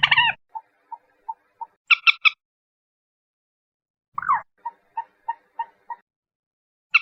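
Common moorhen calls from a lure recording. A loud harsh call is followed by a run of short clucks about three a second, then three quick harsh notes. After a pause, a loud call falling in pitch leads into another run of clucks, and a harsh note comes near the end.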